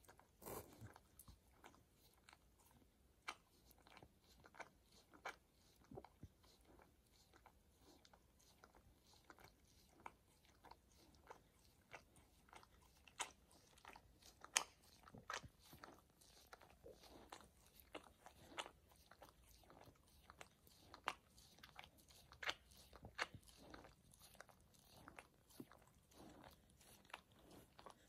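A border collie chewing and crunching something hard, faint sharp crunches at irregular intervals with quiet gaps between, one louder crunch about halfway through.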